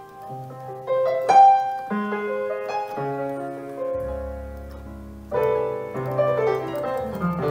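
Sampled upright piano (the Versilian Upright Piano VST) played from a Wersi Sonic OAX organ's keyboard: a slow run of chords and single notes, with a low bass note coming in about four seconds in and a fuller chord struck just after five seconds.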